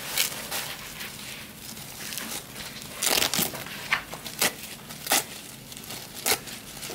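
Crinkling and crackling with a handful of sharp, irregular clicks, the loudest cluster a little past three seconds in.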